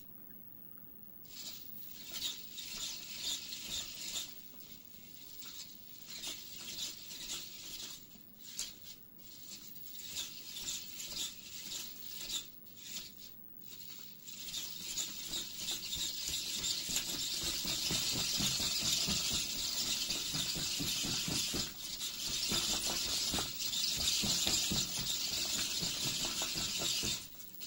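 Hobby servo motors of a 3D-printed hexapod robot whining and chattering with rapid small clicks as it walks. They come in fits at first, run steadier and louder from about halfway on, and stop just before the end.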